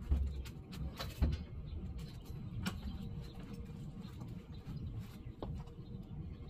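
A few knocks and footsteps as a person gets down from a metal stepladder and walks away, over a low steady rumble.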